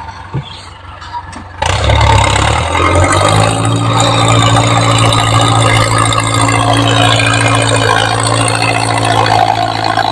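Ford New Holland 6640 tractor's diesel engine working under load while its front blade pushes a pile of soil. Quieter at first, then about a second and a half in it jumps to a loud, steady engine note that rises slightly in pitch and holds.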